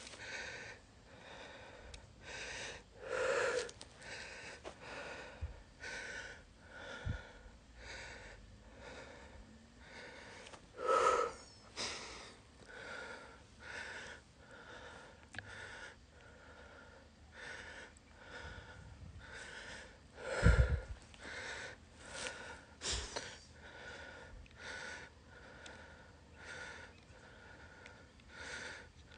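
A person walking uphill on dry, scrubby ground, with regular footsteps about two a second and hard breathing. A few louder puffs of breath stand out, the loudest about two-thirds of the way through.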